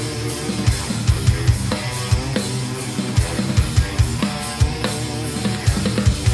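Acoustic drum kit played hard with busy, uneven bass-drum hits, snare and cymbals, along with a distorted progressive-metal guitar backing track.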